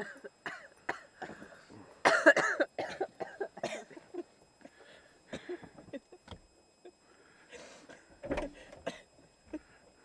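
A young woman's short vocal bursts, coughs and laughter, in a car seat, the loudest about two seconds in and again near the eight-second mark.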